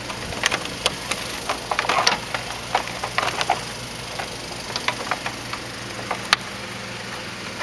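Plastic rocker panel cover of a Honda Civic being fitted back onto the sill: scattered clicks and knocks of plastic against the body, with a sharper snap about six seconds in, over a steady low hum.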